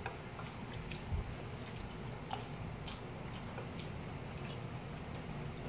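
Eating sounds: chewing of fried rice, with scattered light clicks of a spoon against a ceramic plate over a low steady room hum.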